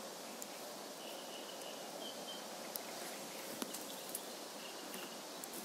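Quiet lakeside outdoor ambience: a steady faint hiss with a few short, faint high chirps and occasional small ticks.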